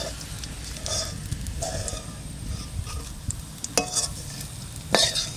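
A spatula scraping fried onion, garlic and spices around a wok and lifting them out, over a faint sizzle of hot oil. Two sharp clacks near the end, the second the louder.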